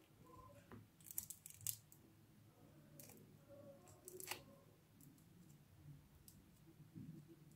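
Faint crackles and clicks of crunchy bead-filled putty being pulled from its jar and worked between the fingers, with a few sharper pops about a second in and around three and four seconds in.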